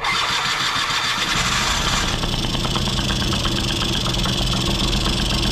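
2001 Yamaha Vino scooter's small two-stroke engine being turned over by its electric starter and catching after about a second and a half, then running steadily at idle. This is its first start on a freshly rebuilt carburettor.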